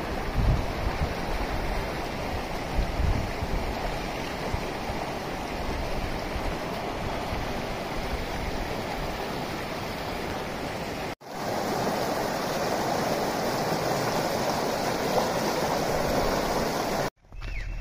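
Shallow mountain stream rushing over boulders and stones in small rapids, a steady rush of water. About eleven seconds in it breaks off for a moment and comes back a little louder.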